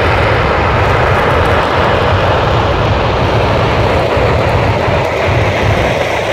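Aerojet Rocketdyne RS-25 liquid-hydrogen/liquid-oxygen rocket engine test firing, heard across open ground as a steady, continuous roar with a deep low rumble underneath.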